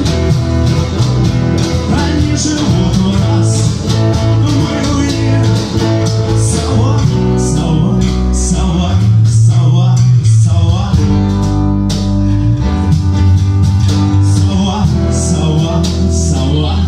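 A rock band playing live: guitar, bass guitar and drums over a steady beat.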